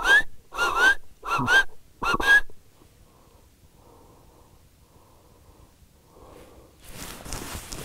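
Burchell's zebra calling: four short, harsh barking calls in about two and a half seconds, each ending on a rising note.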